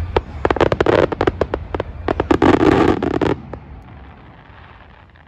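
Fireworks display: a rapid run of sharp bangs and dense crackling from bursting shells, dying away about three and a half seconds in.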